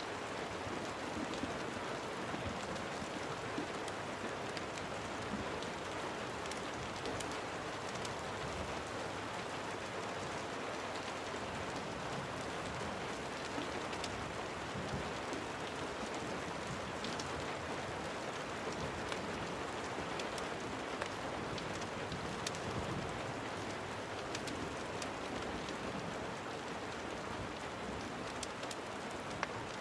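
Steady rain, with small sharp ticks here and there.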